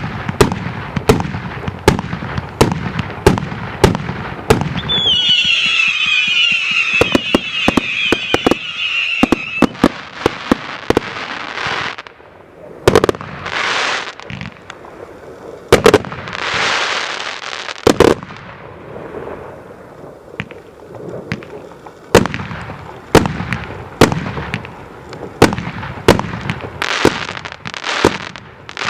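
Multi-shot consumer fireworks cake firing: a rapid run of launch thumps and sharp bursting reports, with a band of high whistles slowly falling in pitch from about five to ten seconds in, and hissing, crackling swells after that.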